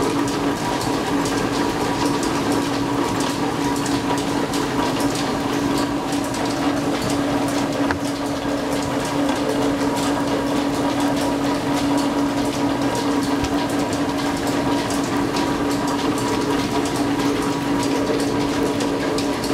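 Antique flat-belt, line-shaft-driven lathe running and taking a single-point threading pass at 10 threads per inch on a steam engine's valve rod with a high-speed steel tool. A steady machine hum with one constant tone and faint fine ticking throughout.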